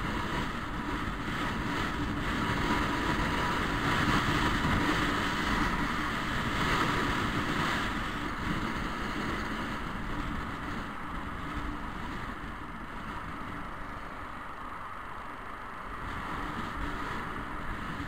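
Motor scooter on the move in traffic: wind rushing over the microphone over the steady drone of the scooter's small engine. Louder for the first half, then easing off from about nine seconds in as the scooter slows towards a junction.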